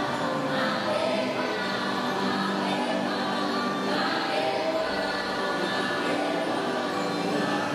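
Ride soundtrack music: a choir singing slow, chant-like held notes over sustained background music, at an even level.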